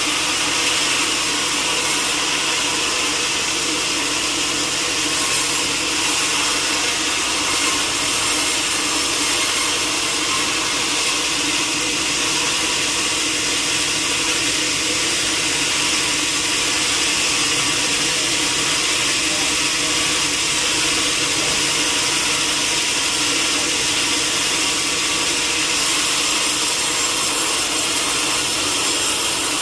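A powered sawmill saw cutting steadily through a log, a continuous even sawing noise with a faint steady whine.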